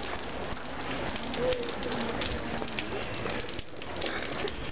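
Light rain pattering with a steady crackle over a large, quiet crowd, with a few faint murmured voices.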